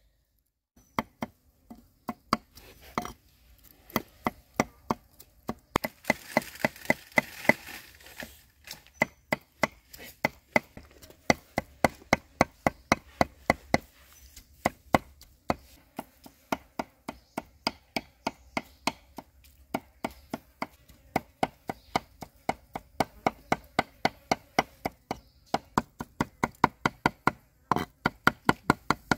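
Cleaver mincing boiled pork on a chopping board: a steady run of sharp knocks, about three a second, with short pauses.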